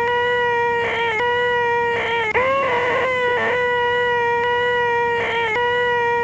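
A man's voice making a shrill, nasal, held 'eeeeh' whine on one steady pitch, the 'most annoying sound in the world', repeated over and over with short breaks between the held notes.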